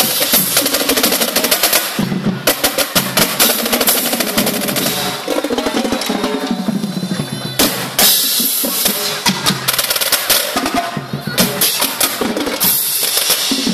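Marching percussion line playing a cadence on the move: tenor drums, snare drums, bass drums and crash cymbals, with fast rolls and accented hits in a dense, continuous pattern.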